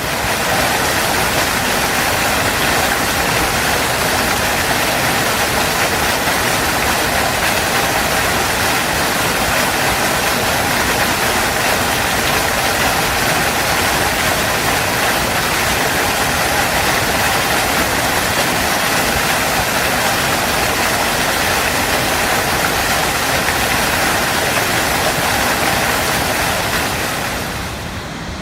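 Waterfall: a steady roar of falling water that dips in level near the end.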